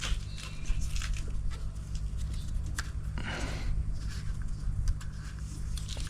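Scattered light clicks and rustles of hands handling the brake switch wiring and its plastic clip, over a steady low rumble.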